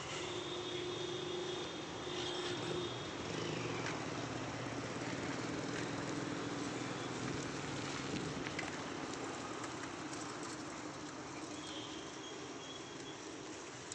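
Steady outdoor background noise, like distant vehicle traffic, with a held tone in the first few seconds and again briefly near the end.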